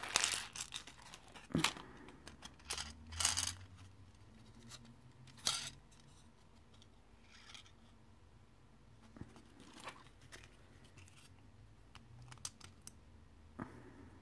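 Thin clear plastic packaging being handled: crinkling rustles and sharp plastic clicks in the first few seconds and again about five seconds in, then only occasional faint clicks.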